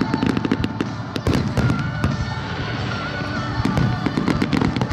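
Fireworks going off in quick succession: a dense, irregular crackle of sharp pops, with music playing underneath.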